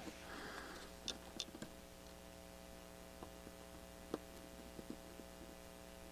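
Faint steady electrical hum with a few light ticks of test probe tips touching the pads of an LED backlight strip.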